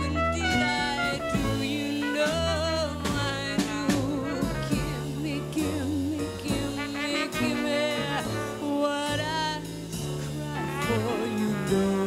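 Jazz song with a woman singing with vibrato, backed by a small combo: plucked upright bass and a brass horn.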